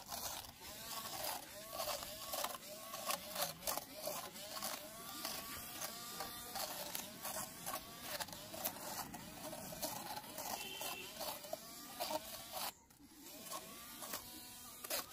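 Small DC motor spinning plastic fan blades, whining and rattling as the blades chop through grass and weeds. Its pitch dips and recovers over and over as the blades bite, with many sharp ticks of blades striking stems. It briefly drops away about thirteen seconds in.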